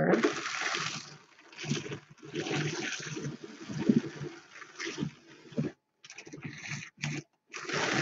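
Louet Classic hand-cranked drum carder turning while wool fibre is fed onto its drum: a rushing, brushing noise of the carding cloth with a low rumble, rising and falling in uneven surges and stopping briefly twice in the second half.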